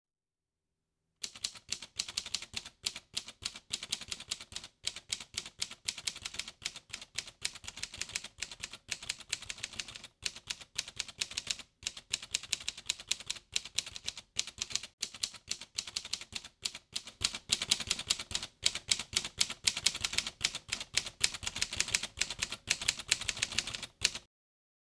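Manual typewriter being typed on rapidly: a fast, uneven run of key strikes with short pauses every few seconds. It starts about a second in, gets louder in the second half and stops abruptly near the end.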